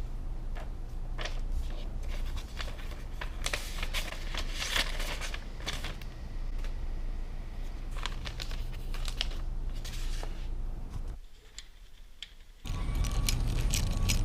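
Rustling, crinkling and clicking of small objects being handled, over a steady low hum; the sound drops away almost to quiet for a moment near the end, then comes back louder.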